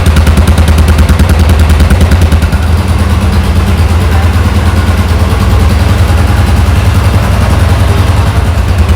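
Royal Enfield Classic 350's single-cylinder engine idling with an even, rapid beat.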